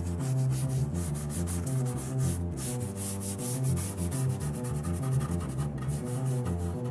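Moog Taurus 3 analog bass synthesizer playing a moving bass line as background music, with a fast, even scratchy rhythm over it.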